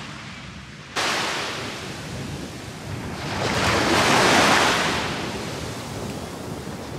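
A rushing noise without pitch or clicks that jumps up about a second in, swells to its loudest around four seconds in, then eases off.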